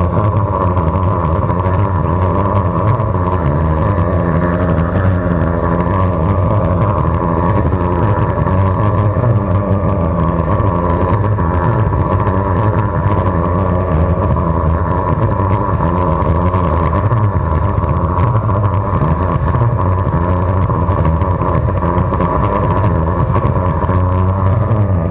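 The 13-horsepower engine of a high-pressure drain jetter running steadily, driving water through the jetting hose fed into the drain line.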